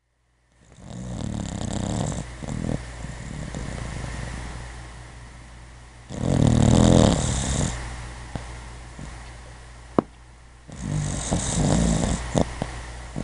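Sleeping puppy snoring: three long snores about four to five seconds apart, the middle one loudest, with quieter breathing between. A sharp click about ten seconds in.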